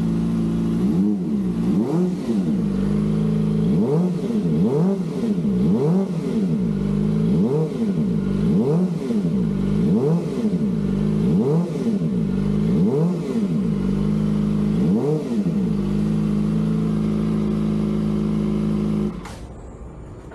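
Kawasaki ZX-25R's four-cylinder engine idling through an Akrapovič slip-on exhaust with its silencer insert fitted, blipped up and back down about eight times in quick succession, then idling again before cutting off suddenly near the end.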